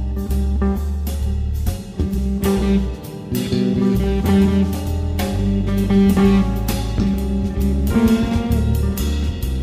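Background music: a guitar-led band track with bass and drums and a steady beat.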